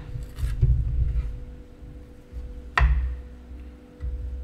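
Chef's knife cutting the tips off raw chicken wings on a wooden chopping board. Low dull thuds of the meat and board being handled come first, then a sharp knock of the blade against the board a little under three seconds in and a softer one near the end.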